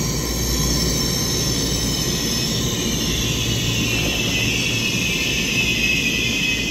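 TRA EMU3000 electric multiple unit pulling into the platform and slowing to a stop: a steady low rumble of the wheels with several high whining tones that slowly fall in pitch as it slows.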